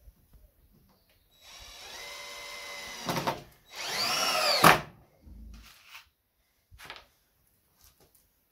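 Cordless drill-driver driving a screw into a worktable top: a steady motor whine for about a second and a half, then a second, louder run whose pitch rises and falls as the screw bites and seats, ending in a sharp click. A few light clicks follow.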